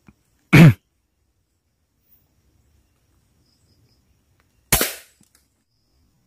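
An air rifle shot: one sharp crack about three-quarters of the way through that dies away within about half a second. About half a second in there is a brief, louder sound that falls in pitch.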